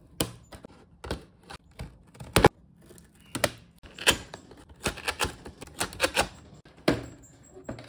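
Cardboard box being opened by hand: a blade slits the seam, then the lid's glued tabs are pried and torn loose in a run of sharp snaps and crackles, the loudest about two and a half seconds in.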